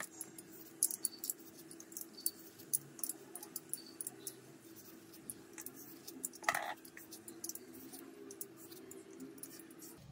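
A hand-held vegetable peeler scraping strips of skin off a cucumber: light, irregular scraping clicks, with one louder scrape a little past halfway.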